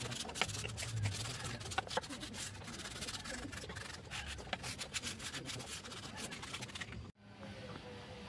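Hand-sanding the edges of a small scroll-sawn wooden horse cutout: quick, irregular rubbing strokes of abrasive on wood. The sound stops abruptly about seven seconds in, leaving a much quieter background with a faint steady tone.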